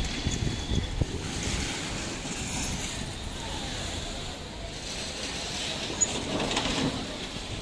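Storm wind gusting across the microphone: a steady rushing and low buffeting noise with no clear rhythm or tone.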